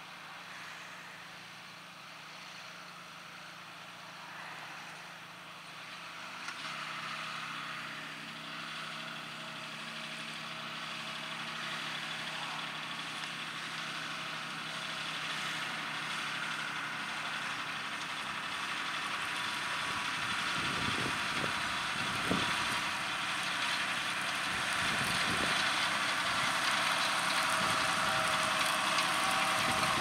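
John Deere 6R 215 tractor's six-cylinder diesel engine running under load while pulling a Kverneland five-furrow plough through stubble, growing steadily louder as the tractor approaches.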